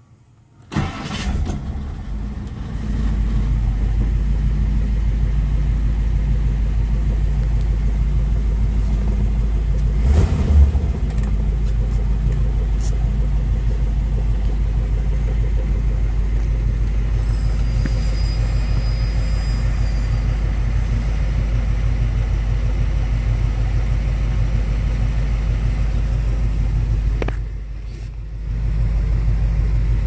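1959 Ford Thunderbird's V8 engine cranked and started about a second in, then running at a steady idle, briefly louder about ten seconds in.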